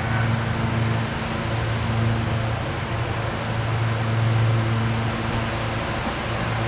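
SEPTA Silverliner V electric multiple-unit train approaching on the rails: a steady rumble of wheels and running gear with a low, even hum.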